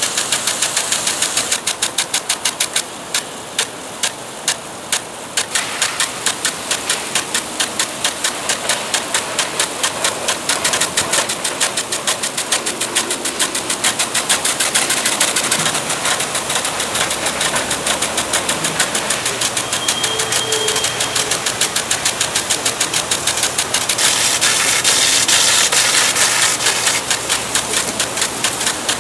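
Impact sprinkler ticking in a rapid, even rhythm over the hiss of its water spray.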